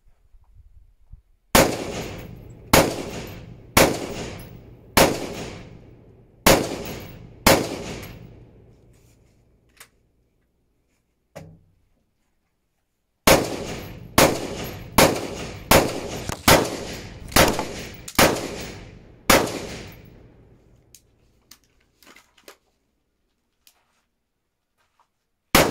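13-inch-barrel AR-15 carbine (Uronen Precision UP Tactical Carbine) firing single shots at a steady pace: six shots about one a second, a pause of about five seconds, then eight more, and another one near the end. Each shot trails off over about a second.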